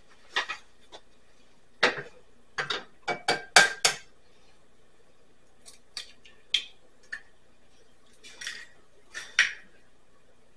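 Eggs being cracked into a small cast iron frying pan: a series of sharp taps and clicks of shell on the pan and the carton, in several quick clusters.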